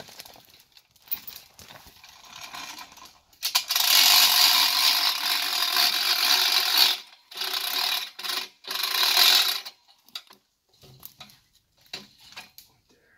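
Hand-cranked winch on an ATV logging arch being cranked to hoist a log, its ratchet clicking rapidly as the handle turns. One long spell of cranking starts about three and a half seconds in, followed by two shorter spells.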